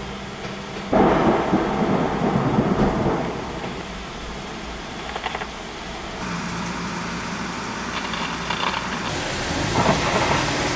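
Thunder from a nearby lightning strike breaks in suddenly about a second in and rumbles for about two seconds, with a second rumble swelling near the end, over steady heavy rain. Heard from inside a car.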